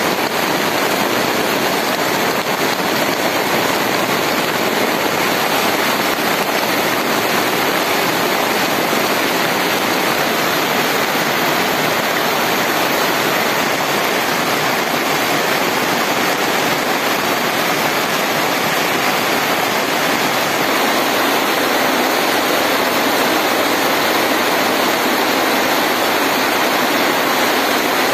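Heavy rain pouring steadily, a dense even hiss with no letup.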